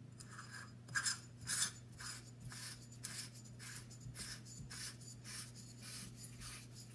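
VieSimple conical burr espresso grinder's top housing being twisted back onto its threaded body by hand: a run of short rasping strokes, about two or three a second, as the threads rub round.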